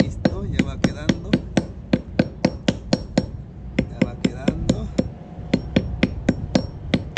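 Hammer striking lead sinkers on a fishing net's rope, laid on a flat stone: quick even blows, about four a second, some with a light metallic ring, with a short pause about halfway through.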